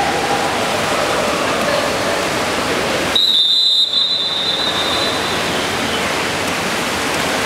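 Steady roar of pool-hall noise from water and crowd during a water polo match. About three seconds in, a shrill high whistle sounds, sharp at first and then held fainter for a couple of seconds.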